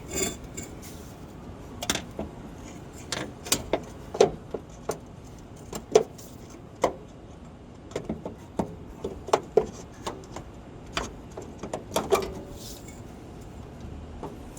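Irregular metallic clinks and knocks of hand tools and suspension hardware being handled during a coilover install, some ringing briefly, about a couple of dozen scattered strikes.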